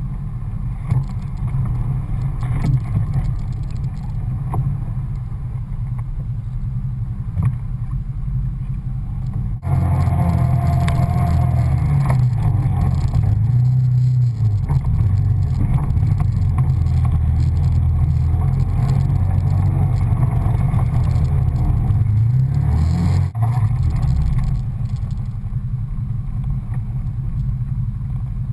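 Off-road 4x4's engine running while driving over rough dirt and gravel. It runs steadily at first, then gets louder about ten seconds in and revs up and down under load, easing back a little after twenty seconds.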